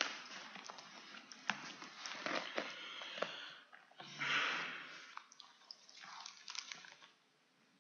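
Close-miked handling noise: papers rustling and small clicks and knocks on a wooden lectern, picked up by a headset microphone, with a short hissing rush about four seconds in.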